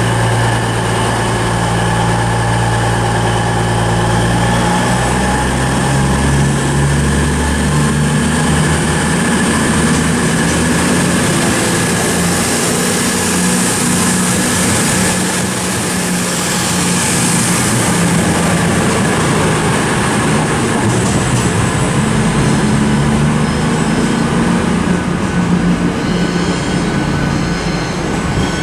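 Two coupled Class 220 Voyager diesel-electric units pulling out. Their underfloor diesel engines step up in pitch about five seconds in, and wheel and rail noise rises over the steady engine drone, with thin high-pitched squeals near the end.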